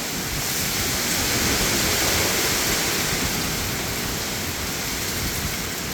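Hurricane rain and wind, a steady heavy rushing downpour that swells a little about two seconds in and then eases.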